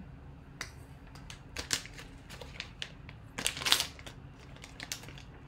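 Foil pouch crinkling and tearing as it is opened by hand, in a string of short rustles, the loudest about three and a half seconds in.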